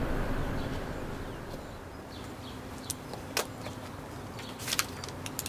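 Quiet outdoor background noise: a steady low hum, with a few short, sharp high ticks a little after the middle and again near the end.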